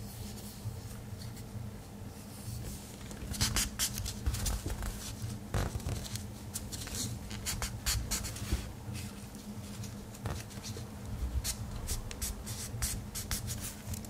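Scratching and small clicks from hands working on a Victorinox Tinker Swiss Army knife during cleaning, coming irregularly from a few seconds in.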